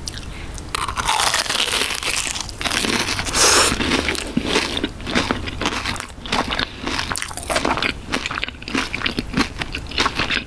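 Close-miked biting into a McDonald's raspberry cream cheese pie: the very crispy pastry shell crunches for the first few seconds, loudest about three and a half seconds in. It then gives way to quick, crackly chewing of the crust.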